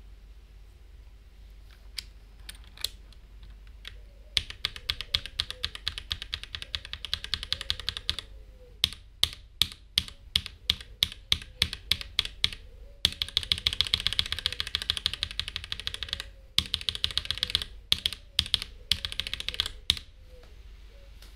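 Typing on a Noir N1 Pro mechanical keyboard fitted with swapped-in switches for a sound test. A few single clicks come first, then a burst of fast typing, a run of separate key presses, a second burst of fast typing and more single presses, stopping about a second before the end.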